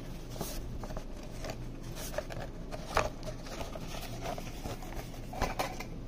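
A rolled sheet lamp shade being opened out and handled: irregular rustling and crinkling, with sharper crackles about three seconds in and again near the end.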